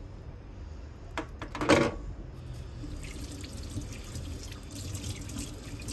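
Water running from a tap into a sink, starting about two and a half seconds in. It follows two knocks, the second of which is the loudest sound.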